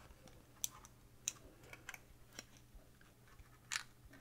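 A handful of faint, sharp little clicks and taps, irregularly spaced, with the clearest one near the end: fingers handling a flat ribbon cable and fitting it into a small plastic connector with latch ears.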